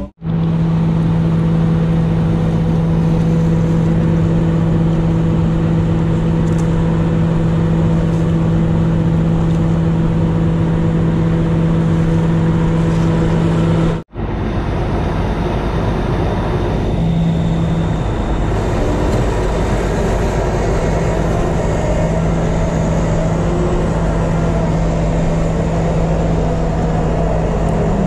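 Heavy tow truck's engine running at a steady idle: a constant low hum that holds one pitch, with a brief dropout about halfway through.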